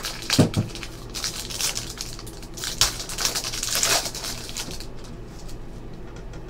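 Foil wrapper of a trading-card pack crinkling and tearing as it is opened by hand, with a low thud about half a second in. The crackling dies down about five seconds in.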